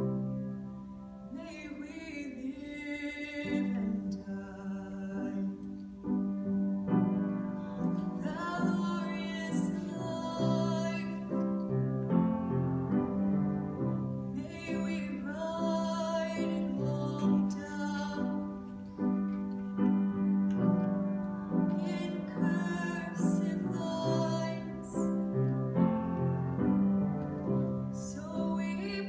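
A girl singing in phrases while accompanying herself on an upright piano, the piano chords carrying on between her lines.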